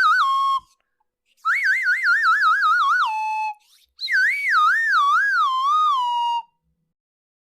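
Cartoon comedy sound effect: a high, whistle-like warbling tone, heard three times. Each wobbles rapidly in pitch, slides down, and settles on a lower held note, like a 'fail' or 'wah-wah' gag sting. The first one is already under way at the start.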